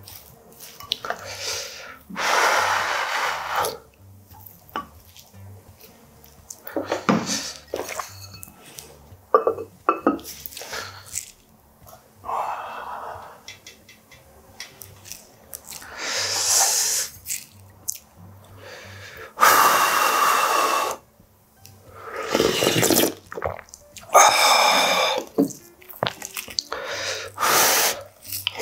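A run of short, separate eating and tableware noises: a plastic rice paddle scraping rice out of a clay pot, the aluminium lid lifted off a soup pot, and mouthfuls of rice taken from a wooden spoon.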